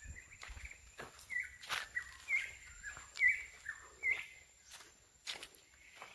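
Footsteps crunching on dry dirt and leaf litter, with a bird calling over them in short, repeated chirps about once a second.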